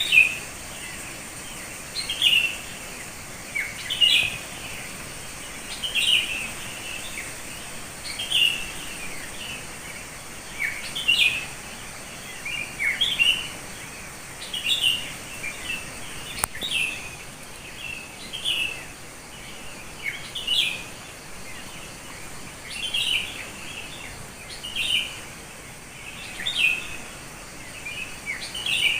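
Wild bird calling over and over in short, bright chirps, about one every one to two seconds.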